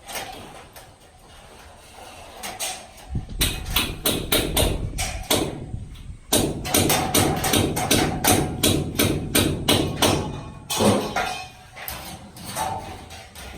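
Construction work on a ceiling frame: runs of rapid knocks and hammer blows, several a second, starting about three seconds in, breaking off briefly near six seconds, then resuming and thinning out near the end.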